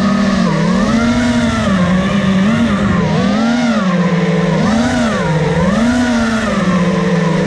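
FPV quadcopter's electric motors and propellers buzzing loudly, the pitch swelling up and dropping back several times as the throttle changes.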